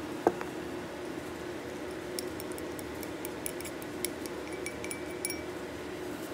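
A glass dessert bowl of chopped mango knocks once against a surface, then a utensil makes a string of small, light clinks against the glass as the mango cubes are scraped out and tipped into a plastic tub. A steady low hum runs underneath.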